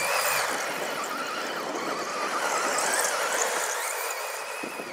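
Tamiya Mighty Frog Evolution 3 electric RC buggy running hard on loose dirt: the whine of its motor and gears rises and falls in pitch with the throttle, over a steady hiss of tyres on gravel.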